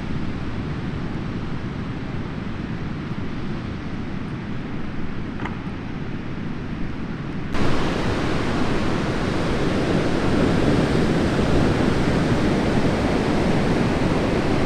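Ocean surf breaking, with wind buffeting the microphone, as a steady rushing wash. About seven and a half seconds in it jumps abruptly louder and brighter.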